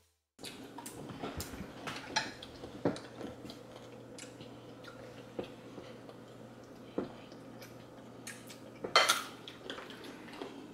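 Forks clinking and scraping against ceramic plates and bowls as children eat, in scattered small clicks over a faint steady hum. A louder, brief noise comes about nine seconds in.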